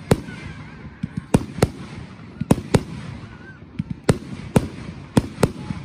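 Aerial fireworks shells bursting close overhead: about nine sharp bangs, often in pairs a fraction of a second apart.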